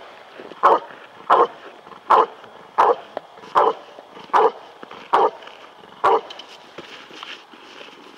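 Rottweiler barking steadily at a helper hidden behind the blind, the bark-and-hold of IPO protection work. It gives about nine sharp barks, one roughly every three-quarters of a second, and stops about six seconds in.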